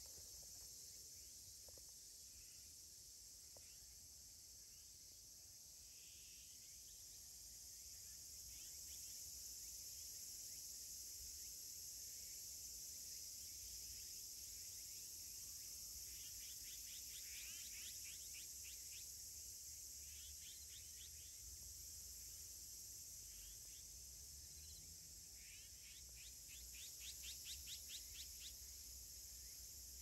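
Faint steady high shrilling of an insect chorus, with short trains of rapid chirping notes about halfway through and again near the end.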